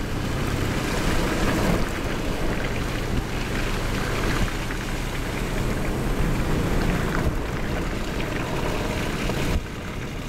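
A vehicle's engine hum under a steady rush of wind and water noise. The sound drops abruptly a little before the end.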